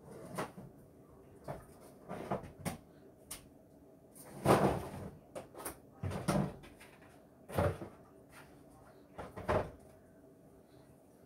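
Rummaging in a low kitchen cupboard: a series of separate knocks and clunks from the cupboard door and the things inside being moved, the loudest about four and a half seconds in.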